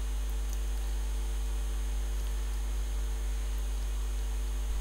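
Steady electrical mains hum from the sound system: a constant low buzz with a few faint steady tones above it and a thin high whine, with no other events.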